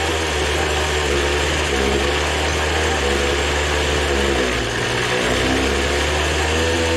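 Small two-stroke leaf blower engine running on nitromethane RC car fuel, a steady buzzing drone whose speed wavers briefly about four and a half seconds in, then settles again.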